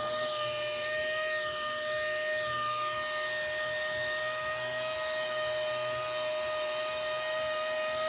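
Small electric sanding machine running steadily, sanding a plastic (ABS-PC) car interior handle: an even motor whine at a constant pitch over the hiss of sandpaper on plastic.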